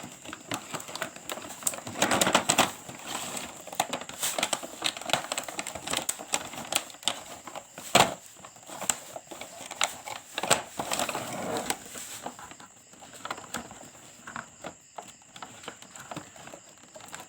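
Irregular plastic clicks, knocks and rustling as a new toy cement-mixer truck and its packaging are handled, with one sharper knock about eight seconds in.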